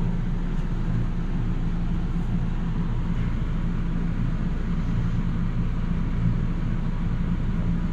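Steady low rumble of a vehicle's engine and road noise, with an even hum and no changes.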